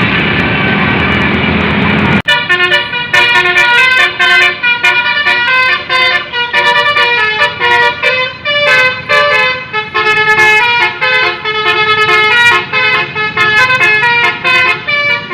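A bus's Basuri telolet horn, a multi-trumpet musical air horn, playing a quick melody of short, blaring notes. It follows about two seconds of loud, noisy vehicle sound that cuts off abruptly.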